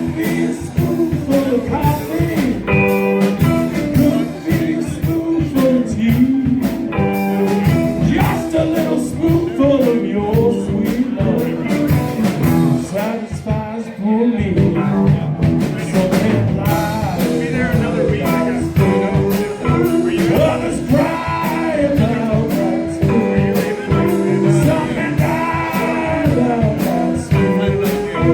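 Live blues band playing, with guitar lines that bend in pitch over a steady drum beat.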